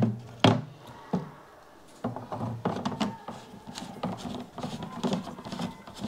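Plastic parts of a Sagan Life AquaBrick water filter knocking and rattling as the filter unit is fitted into the water-filled container. Three sharp knocks come in the first second or so, then about two seconds in a busy run of smaller clicks, knocks and scrapes.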